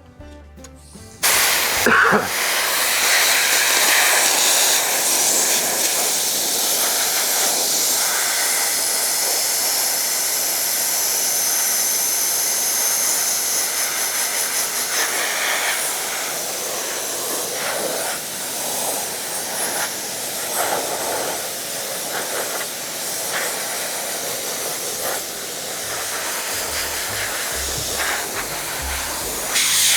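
Foam adhesive spraying with a loud, steady hiss that starts abruptly about a second in and keeps going with brief dips.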